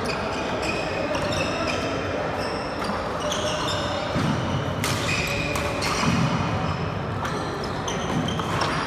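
Badminton doubles rally: sneakers squeaking in short chirps on the wooden court floor, with a couple of sharp racket hits on the shuttlecock, one about halfway through and one near the end.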